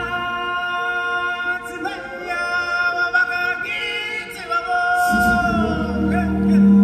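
Live show music: a singer holding long notes with little accompaniment, joined by low sustained tones about five seconds in.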